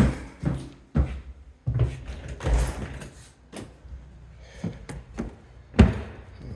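Heavy footsteps thudding on a building-site floor, a string of irregular thumps and knocks, the loudest near the end.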